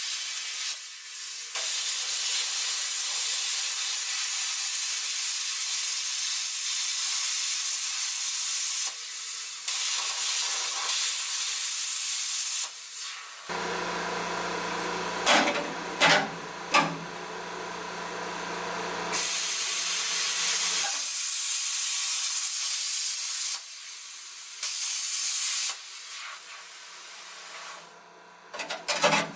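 Hand-held plasma cutter torch cutting rusted sheet steel, its compressed-air arc giving a steady loud hiss that stops and restarts several times. For a few seconds in the middle the hiss gives way to a lower hum with a few sharp clicks.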